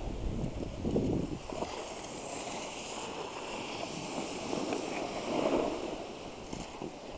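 Snow hissing and scraping under a snowboard gliding down a packed groomed run, with wind rushing over the action camera's microphone. The scraping swells louder twice, about a second in and again past halfway.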